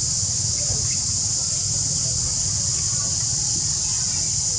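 Insects droning in a steady, high, continuous buzz that never lets up, over a steady low rumble.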